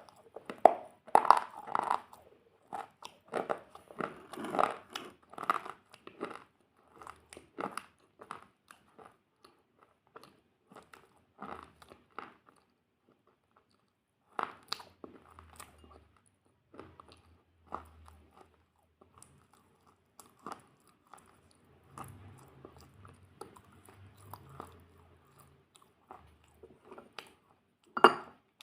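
Close-miked crunchy food being bitten and chewed with loud, crackling crunches. The crunches come thick and fast at first, then turn to sparser, softer chewing with a brief pause midway, and end on one loud crunch near the end.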